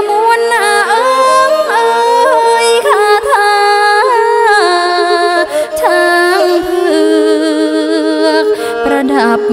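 A woman singing a traditional Khmer Surin song in a sliding, ornamented line with vibrato, accompanied by a two-string bowed fiddle.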